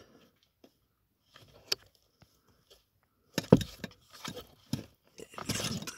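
Plastic clicks, knocks and rattles as the wiring plug is worked off a car's AC evaporator temperature sensor on the heater box, with one sharp knock a little past halfway and a busier stretch of handling near the end.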